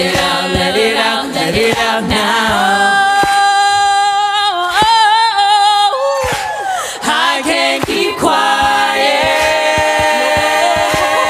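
Background music: an a cappella choir singing long held notes.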